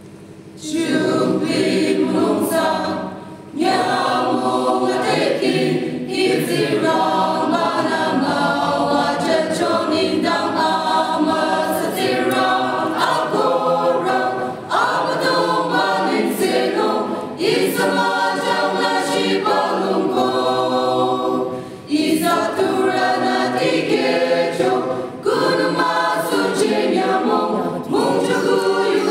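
A choir of mostly women's voices singing a cappella, coming in about half a second in and carrying on in long phrases with brief breaks for breath.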